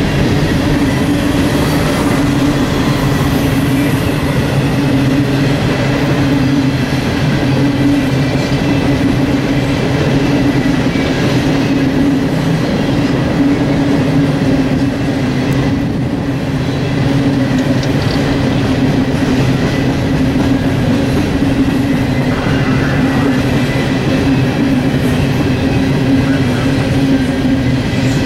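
Norfolk Southern coal hopper cars rolling past at close range: a steady, even rumble of steel wheels on rail with a constant low drone.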